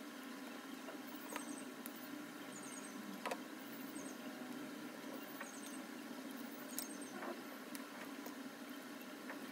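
Light, scattered clicks and taps of hand work on a Braun hand blender's parts, over a steady low hum. Faint high chirps come now and then.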